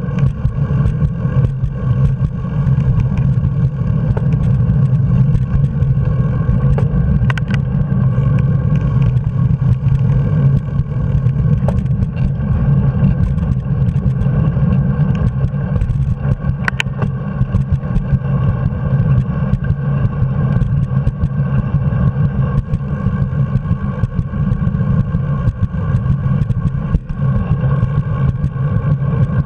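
Steady wind rush and rolling road rumble picked up by a camera mounted on a moving bicycle's handlebars, heaviest in the low range, with a few brief clicks.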